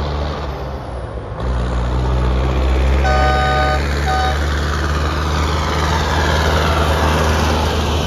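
Tractor engines running in an approaching convoy, with a horn sounding twice about three seconds in, one long blast and one short. A rising hiss of tyres on the wet road builds near the end as a tractor draws close.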